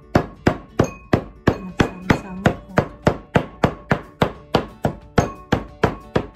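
Steel cleaver chopping red chilies on a wooden cutting board, a steady rhythm of about three sharp chops a second as the chilies are minced fine.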